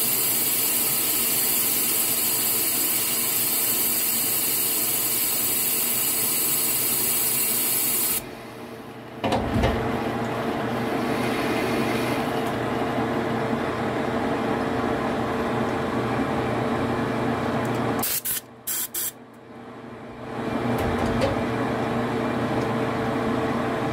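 Metal lathe running with the chuck spinning and a boring bar cutting the workpiece's bore: a steady machine hum, with a loud hiss over it for about the first eight seconds. The sound drops out briefly about eight seconds in and again a little before twenty seconds, then settles into a steady whine.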